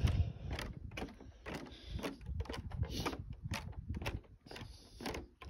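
Footsteps on a wooden boardwalk, a steady walking pace of about two steps a second.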